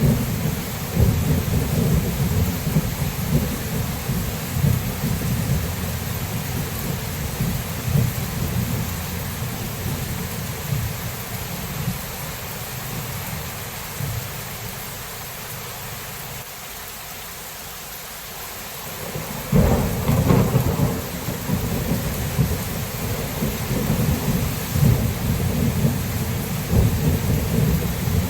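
Thunderstorm: steady rain hissing, with thunder rumbling low and rolling. The rumble dies away partway through, then a sharp thunderclap hits about twenty seconds in and rolls on into more rumbling.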